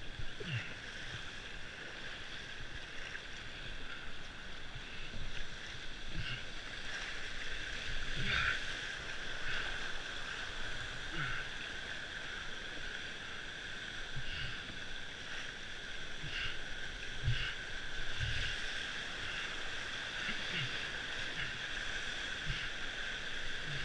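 Rushing whitewater rapids around a slalom canoe, a steady hiss, with irregular dull thumps every second or two.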